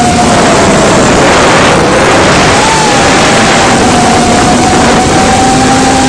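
Small FPV drone's motors whining, heard through the onboard camera's microphone over loud rushing wind noise. The motor pitch dips about a second in and climbs back near the three-second mark, then holds steady.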